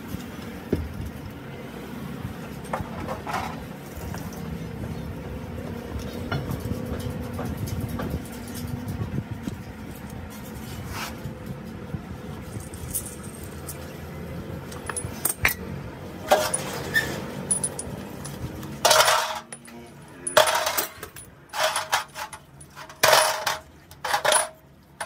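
Metal parts clinking and knocking against each other. A low, steady rumble runs underneath until about three-quarters of the way through. It then stops, and a handful of loud, ringing metal strikes follow near the end.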